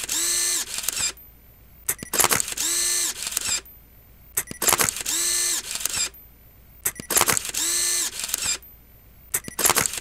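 Camera shutter clicks, each followed by a short motor whir like film winding on. The click-and-whir repeats evenly about every two and a half seconds, five times.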